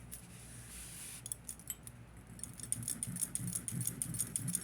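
Small metal jewelry clinking and jingling as it is handled: a quick run of light clicks that gets busier in the second half.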